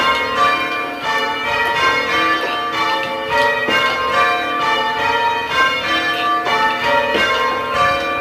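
Church tower bells rung full-circle by hand ropes in English change ringing: a steady, even succession of bell strikes, several a second, each ringing on into the next. Heard from the ringing chamber below the bells.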